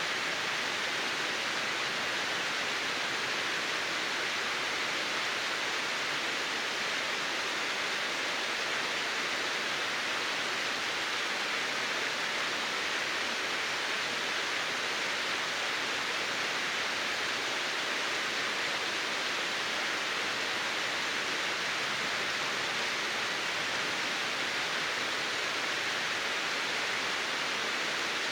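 Steady, even rush of water at a frozen waterfall, with water still running under the ice.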